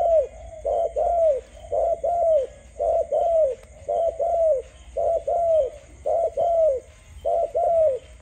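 Spotted dove giving its bow-coo display call: paired coos, each note dropping in pitch, repeated about once a second in a steady run while the bird bows.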